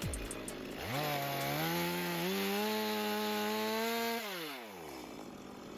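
Gas-powered Stihl chainsaw engine revving up about a second in and held at high revs for about three seconds. It then drops back to idle.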